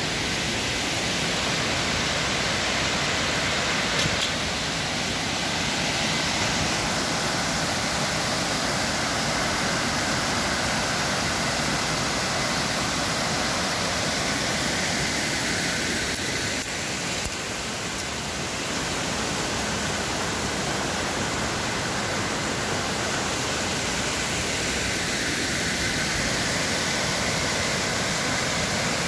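Waterfall pouring into a plunge pool, a steady rushing of falling water.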